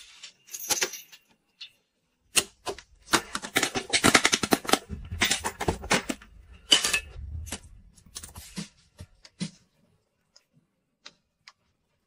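Close-miked bathroom grooming sounds: a fast run of scratchy strokes and clicks, densest a few seconds in, thinning to scattered taps, then near quiet for the last couple of seconds.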